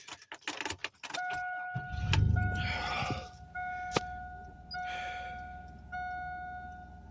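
Inside an old pickup truck: keys rattle, then a warning chime dings about once a second while the engine cranks and starts about two seconds in and settles into a steady idle.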